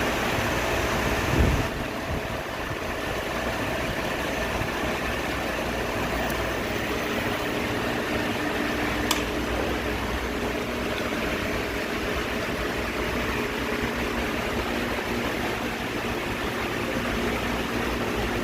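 Mercedes-Benz car idling with its air conditioning running: a steady rush of air from the fan over a low engine hum. A short thump about a second and a half in, and a sharp click about nine seconds in.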